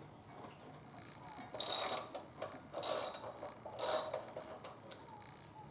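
Ratchet wrench clicking in three short bursts, loosening a motorcycle fork's axle pinch bolt.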